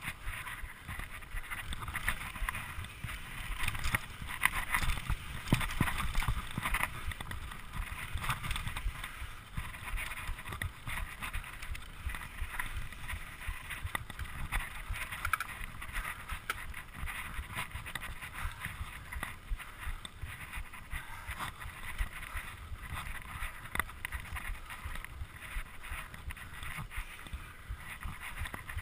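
Mountain bike ridden fast down a dirt singletrack: wind rushing over the microphone, with constant rattling and knocking from the bike and tyres over the bumpy trail, loudest about four to seven seconds in.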